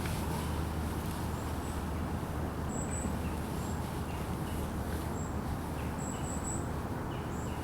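Outdoor ambience: a steady low rumble with short, high-pitched bird chirps coming every second or so at irregular spacing.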